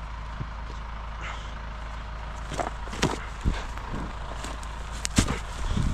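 A few scattered knocks and clicks of gear being handled, the loudest near the end, over a steady low rumble.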